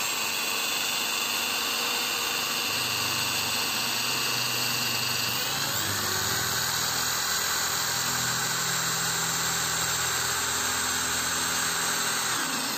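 BuildSkill Pro 500 W 13 mm drill boring into a wooden door frame with a wood bit: a steady motor whine that rises in pitch about six seconds in as it speeds up, then winds down at the end.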